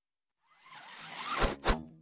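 TV channel ident sound effect: a whoosh that swells up for about a second, ending in two sharp smacks a quarter second apart, then dies away quickly.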